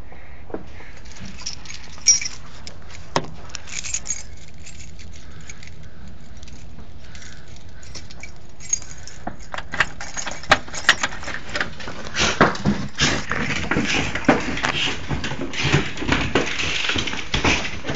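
Small metal pieces jingling and rattling with sharp clicks. There are only a few scattered clicks at first, then from about halfway the jingling becomes rapid and nearly continuous.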